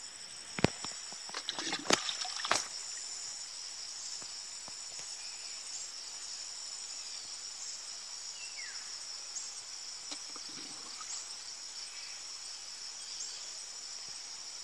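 Steady outdoor insect chorus, several shrill high-pitched tones held unbroken, with a few sharp knocks in the first three seconds.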